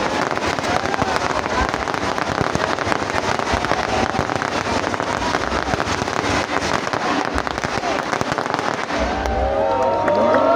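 Fireworks crackling, a dense run of many sharp pops a second without a break. Near the end people shout and cheer over it.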